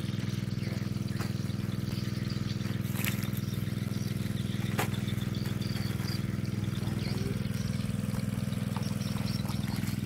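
A small engine running steadily with a low drone, with a couple of sharp crackles from the plastic mulch sheet being handled.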